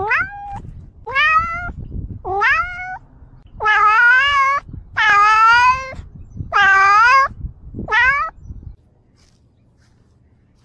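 A domestic cat meowing loudly, seven drawn-out meows in a row, each rising in pitch at the start, the middle ones the longest; the calls stop about two seconds before the end.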